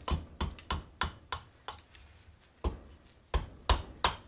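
Hand axe chopping a green black walnut ladle blank held in the hand: quick sharp strokes, about three a second, with a pause of about a second midway.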